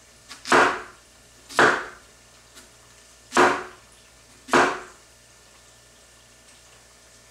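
Large hunting knife slicing through a zucchini and striking a wooden cutting board: four chops, two about a second apart, a short pause, then two more, after which the cutting stops.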